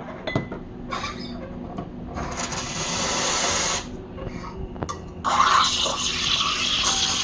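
Espresso machine steam wand hissing: a burst of about a second and a half, then steady steaming starting about five seconds in, with a few light clicks and clinks before it.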